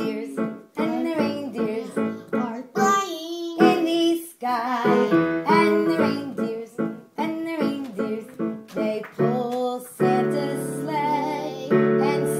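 A boy singing into a microphone, the words not clear, over electric keyboard accompaniment. From about ten seconds in the keyboard holds sustained chords.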